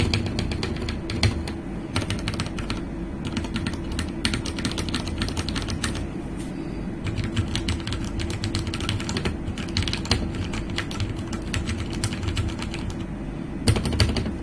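Typing on a Ducky One 2 Mini mechanical keyboard with Cherry MX Brown switches: a fast, uneven stream of key strokes, with a louder flurry near the end.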